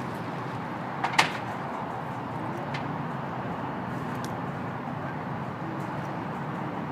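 Steady outdoor background noise with one sharp clack about a second in.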